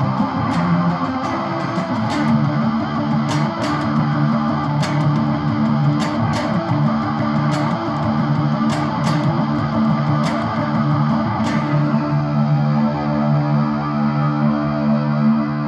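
Instrumental ending of a song: guitar played through effects, with sharp ticks keeping time. About twelve seconds in the ticks stop and a held chord rings on.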